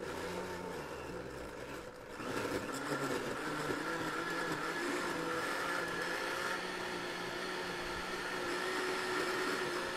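Countertop blender running, blending frozen orange juice concentrate with water, banana and yogurt into a popsicle mix. It starts suddenly, gets louder about two seconds in as it comes up to speed, then runs steadily.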